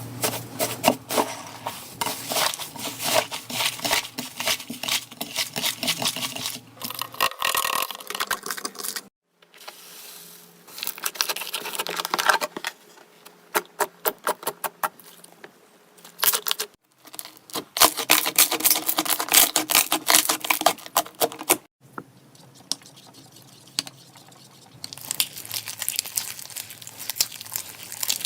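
Soft slime being squeezed and stretched by hand, giving dense sticky crackles and popping clicks. It comes in several short stretches that cut off abruptly between clips.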